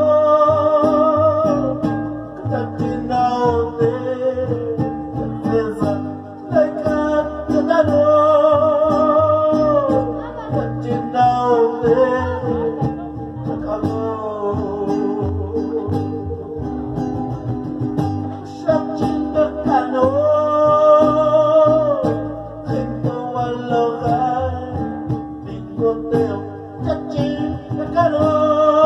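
Live acoustic folk music: a man singing at a microphone, accompanied by a small guitar and a large guitar strumming a steady rhythm.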